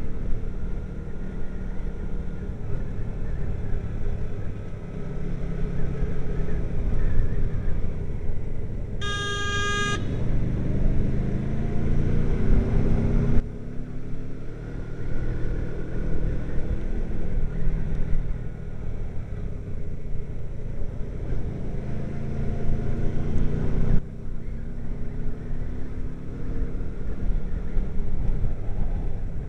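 Motorcycle engine running on the move with wind and road noise on the mic, its pitch rising several times as it speeds up. About nine seconds in, a vehicle horn sounds once for about a second.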